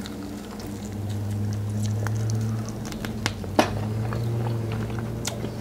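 Chewing a crispy air-fried chicken wing coated with baking powder: scattered sharp crunches and soft squishes of the skin and meat, the loudest crunch about three and a half seconds in.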